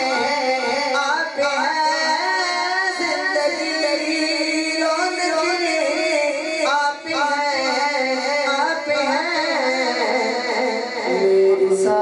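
A man singing a naat into a handheld microphone, amplified over a PA system, in long wavering held notes. The melody drops to a lower held note near the end.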